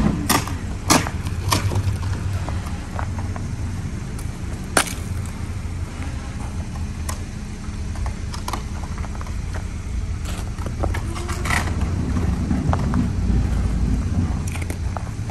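Snow being scraped and scooped by hand off a car's trunk lid: scattered short crunches and scrapes over a steady low rumble.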